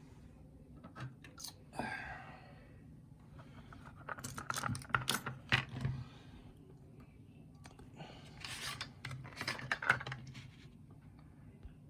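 Small metal clicks and rattles from handling the opened pin-tumbler lock cylinder and its tools as it is taken apart, in two busy spells with a short scrape near the start.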